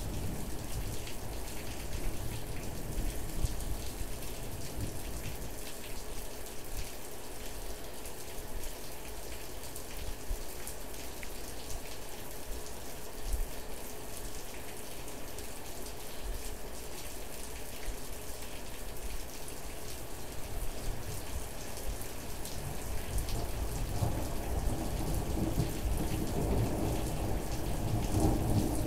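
Steady rain falling, with a low rumble of thunder building over the last few seconds.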